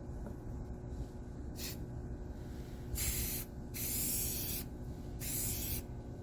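Paint hissing from an aerosol spray can in short bursts: a brief puff about one and a half seconds in, then three longer sprays of half a second to a second each, over a steady low hum.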